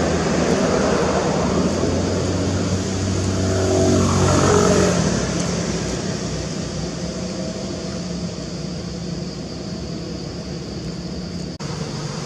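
A motor vehicle engine passing by, loudest about four to five seconds in, its pitch falling as it goes past, over a steady background hum.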